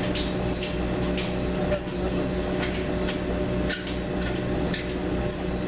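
Steady mechanical hum, one pitched drone over a low rumble, with light clicks and taps scattered irregularly through it.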